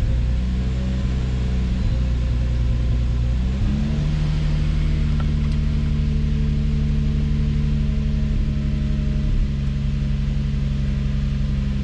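Infiniti G35's V6 engine idling steadily, its idle speed rising a little about four seconds in. The engine is being checked for a misfire that the owner takes to be worn spark plugs.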